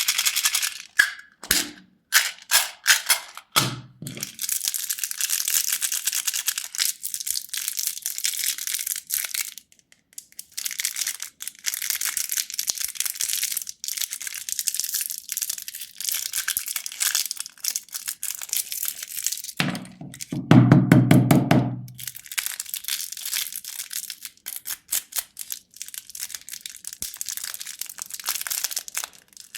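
Plastic candy wrappers crinkling and crackling close to the microphone, in long dense runs broken by short pauses. A low pitched hum sounds for about two seconds roughly two-thirds of the way through.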